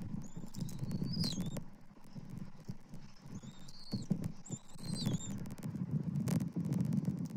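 An adult bald eagle feeding its eaglet in the stick nest, with scattered clicks and crackles. Under them is a low rumble, rising and falling, of wind on the nest microphone. Thin, high bird chirps come three times: about a second in, about three and a half seconds in, and about five seconds in.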